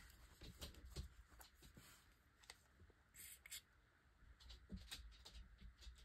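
Faint handling sounds of paper and a piece of lace being arranged on a journal page: scattered small taps and ticks, with a couple of brief soft rustles about three seconds in.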